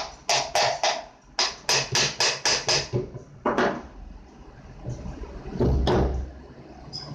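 Sharp tapping knocks, about four a second in two short runs, then two heavier, longer knocks, one near the middle and one about six seconds in.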